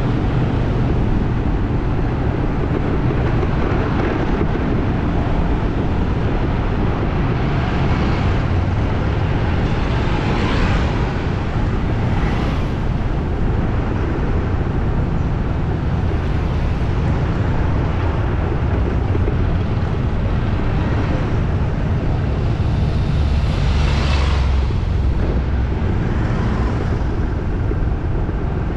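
Busy city street traffic: a steady, heavy rumble of engines and road noise, with several vehicles passing close at intervals, the loudest about two-thirds of the way through.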